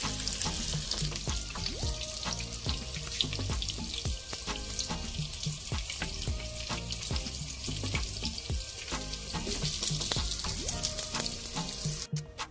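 Cubed purple eggplant frying in hot oil in a pan: a dense, steady crackling sizzle that cuts off abruptly just before the end.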